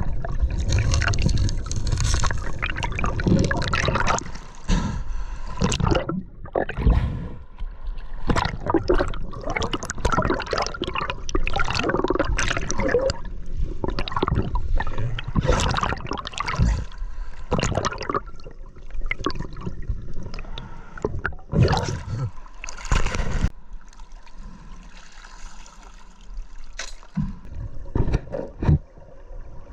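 River water gurgling and trickling close to the microphone, with many irregular knocks and bumps, as a swimmer moves through a cold, clear river run.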